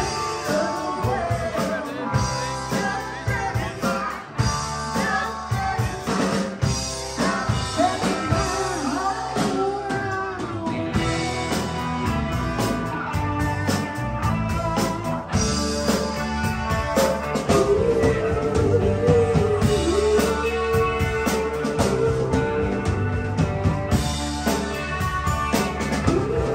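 Live band playing: a woman sings into a microphone over electric guitars and a drum kit.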